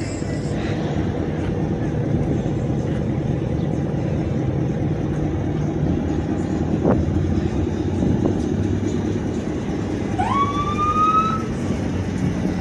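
Car engine running with a steady low rumble. Near the end, a short rising tone sounds for about a second.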